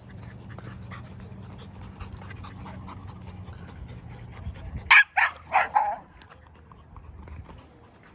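A dog barking, a quick run of about four sharp barks around five seconds in.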